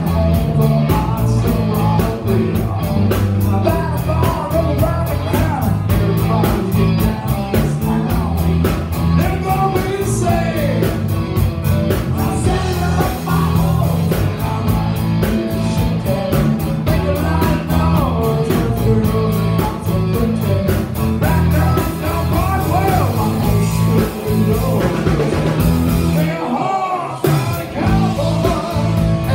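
Live rock band playing: electric guitars, bass guitar and drum kit, with a man singing lead. Near the end the bass and drums drop out briefly, then the full band comes back in.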